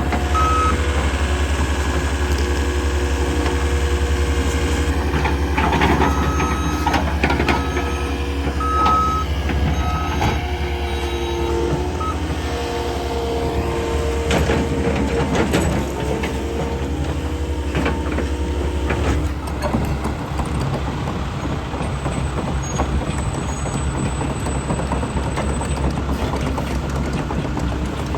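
Heavy diesel demolition machinery running with a steady low engine rumble, a backup alarm beeping over roughly the first twelve seconds, and clanks and scrapes of broken concrete being moved through the middle.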